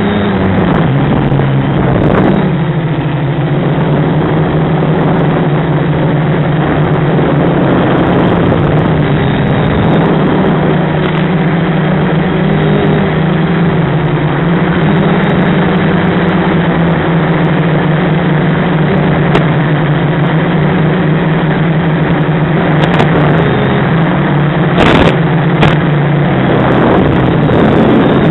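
An FPV quadcopter's SunnySky brushless motors and propellers droning, the pitch rising and falling with throttle. A few sharp clicks come near the end.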